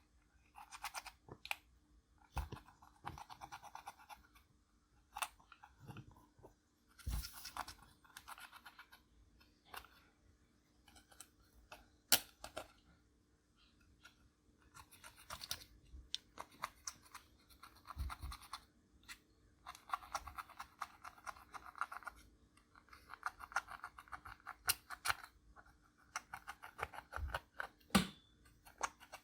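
Clear slime being worked with makeup mixed in, giving repeated short bursts of sticky crackling and squelching with sharp little clicks and pops between them.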